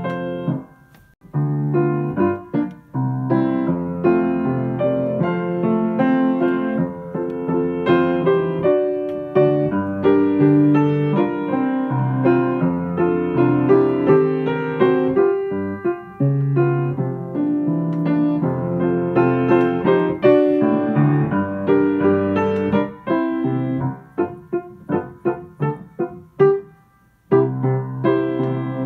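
Background piano music, a slow keyboard piece with sustained notes and chords, breaking off briefly about a second in and again near the end.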